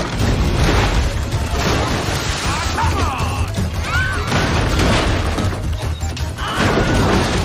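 Film soundtrack: music under loud crashing and rumbling from a giant glass bowl rolling loose, with people screaming as they flee.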